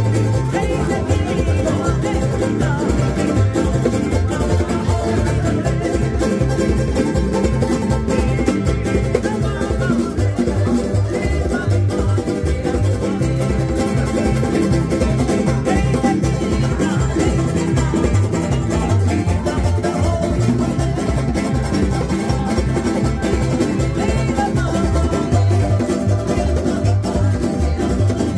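Tahitian string band playing: Tahitian ukuleles strummed in a fast, steady rhythm together with electric guitar, acoustic guitar and electric bass, amplified.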